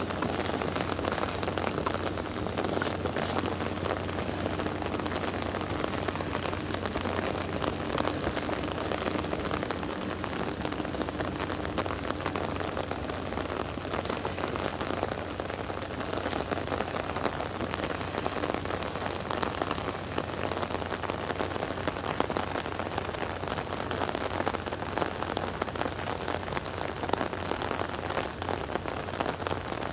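Steady rain falling, a dense, unbroken patter of many small drop hits.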